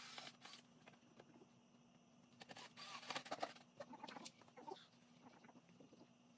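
Near silence, with faint scattered knocks, rustles and a few short chirp-like sounds.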